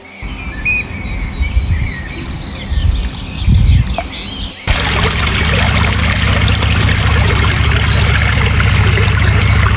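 Birds chirping over low splashing water, then about halfway through a sudden switch to a loud, steady rush of water with a low hum beneath it.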